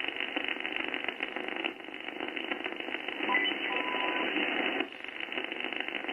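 Icom IC-7610 HF receiver playing band noise: a dense static hiss limited to the voice passband, dropping in level twice as the tuning moves, with a brief steady whistle about halfway through. The noise is the raised noise floor that the owner is chasing as local interference.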